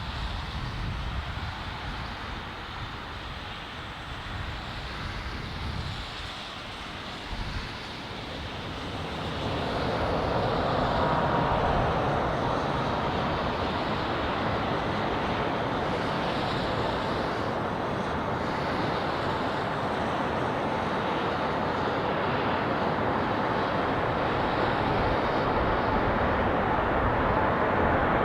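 Emirates Airbus A380's four jet engines: a rushing roar that swells about nine seconds in and holds steady, with a faint whine in it. Low wind rumble on the microphone comes before it.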